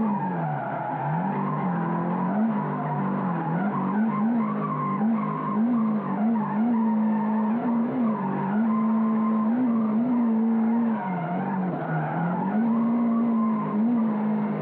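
Car engine running at high revs, heard from inside the car, its pitch dropping and climbing again many times.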